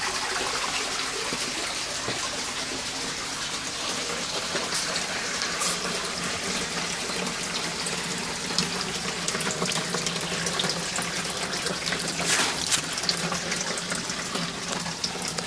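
Water pouring and splashing steadily into an aquaponics fish tank.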